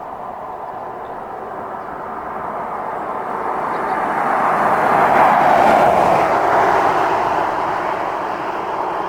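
A vehicle passing by on the road: a rushing noise that builds, is loudest a little past the middle, then fades away.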